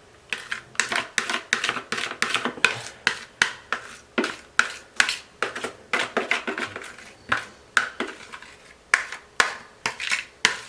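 A kitchen utensil scraping and clacking against a mixing bowl in quick, repeated strokes, about two to three a second, as the pumpkin pie batter is scraped out into the baking dish.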